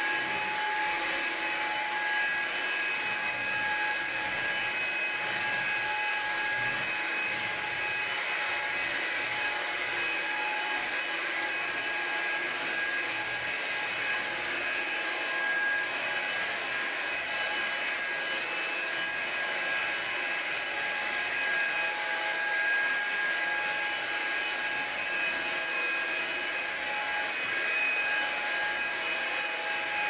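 Hoover Linx BH50010 18-volt cordless stick vacuum running, sucking up coarse salt from a hardwood floor. It gives a steady high whine over a rushing hiss.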